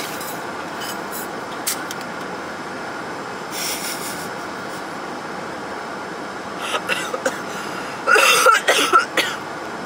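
Steady noise of a car cabin, with a woman's short run of loud vocal sounds behind her hand over her mouth about eight seconds in.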